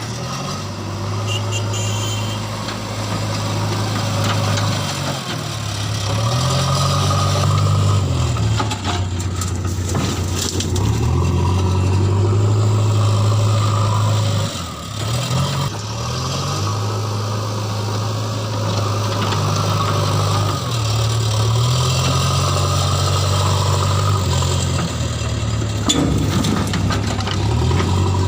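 JCB 3DX backhoe loader's diesel engine working under hydraulic load, its pitch rising and falling again and again as the digger arm digs and swings. A few knocks are heard along the way.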